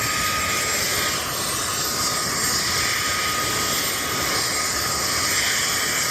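CH-47 Chinook's twin T55 turboshaft engines running at ground idle: a steady, loud turbine hiss with a thin high whine over it.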